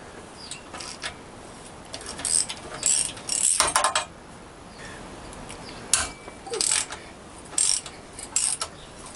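Socket ratchet clicking in repeated short bursts while undoing the exhaust header pipe fastenings on a motorcycle engine.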